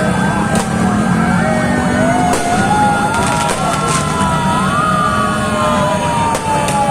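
Several ambulance sirens wailing at once, their pitches sliding slowly up and down and overlapping, over a dense low din, with a few sharp pops.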